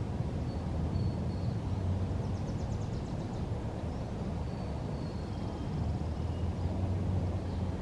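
Outdoor ambience: a steady low rumble, with faint high bird chirps scattered through and a short rapid trill about two and a half seconds in.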